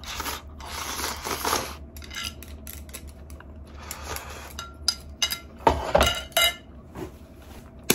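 Chopsticks scraping and clinking against a ceramic plate as the last of the noodles are shovelled in, with a run of sharp ringing clinks, loudest about six seconds in.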